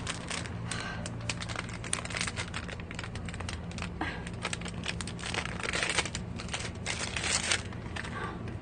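Plastic ice-cream bar wrapper crinkling as it is torn open by hand: a run of small crackles, with denser bursts about six seconds in and again near the end.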